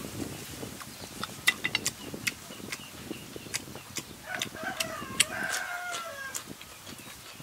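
Sharp clicks and slurps of a man sucking cooked snails out of their shells and chewing. A rooster crows once, a little past halfway through.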